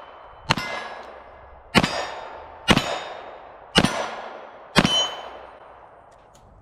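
Kimber K6s 4-inch revolver firing .357 Magnum rounds: five shots about a second apart, each sharp crack trailing off in a long echo.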